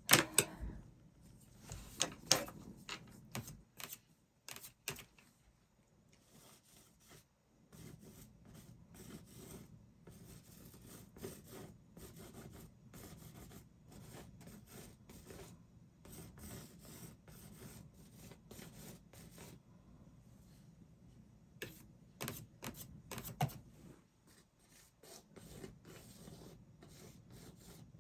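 A paintbrush rubbing and scrubbing paint across a canvas, a steady rough brushing. It comes with a few sharp taps and clicks near the start and again near the end.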